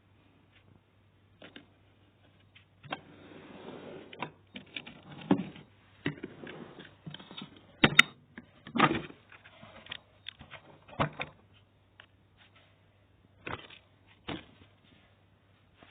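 Irregular clicks, knocks and short rustles of vacuum cleaner parts being handled, with the motor not running. The sharpest knock comes about eight seconds in.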